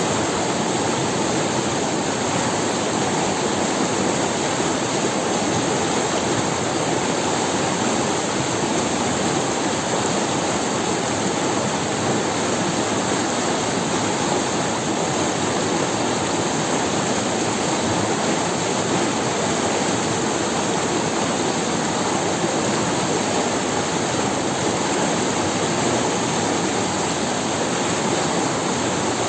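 River water rushing and splashing over stones, a steady, unbroken rush.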